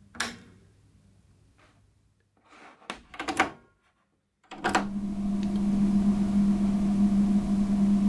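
A click from the rear power switch of a Roland D-10 synthesizer, then scraping clicks as a jack cable is pushed into its rear output socket. Once the plug seats with a final click, a steady electrical hum with hiss comes up on the line.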